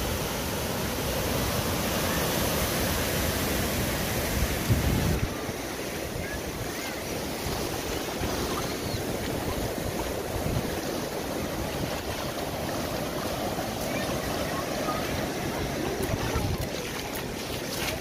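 Ocean surf washing onto a sandy beach in a continuous rush, with wind gusting on the microphone.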